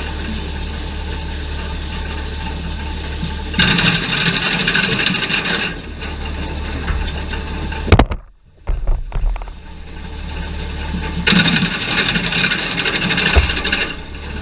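Gasoline-powered wood chipper running steadily, with two longer stretches of louder, rougher noise as branches are fed through and chipped. A sharp knock about halfway through is followed by a brief drop in sound.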